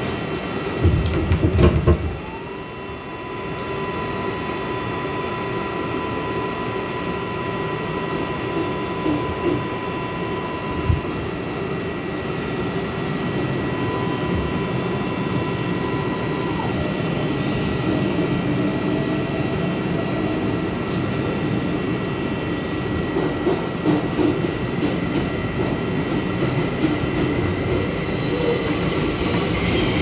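R142A subway car pulling out and running through the tunnel: wheels rumbling and clattering on the rails, with a steady electric whine from the propulsion that cuts off suddenly about halfway through. There is a short, loud low noise about a second in.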